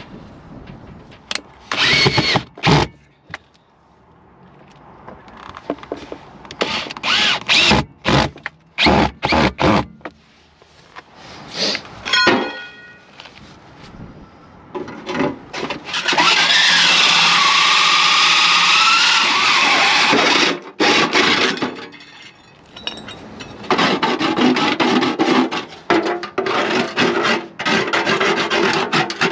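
A power drill running in short bursts, with one steady run of about four seconds midway, and rubbing and knocking noises of parts being handled between runs.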